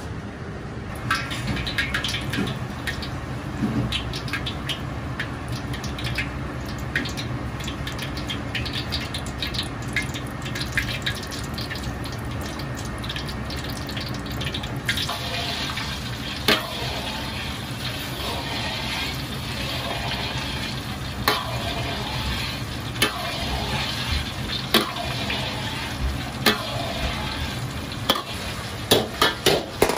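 Wafer-wrapped prawn rolls deep-frying in a wok of hot oil: a dense sizzling crackle that starts about a second in and grows busier partway through, over a steady low rumble. Occasional sharp knocks cut through, more of them near the end.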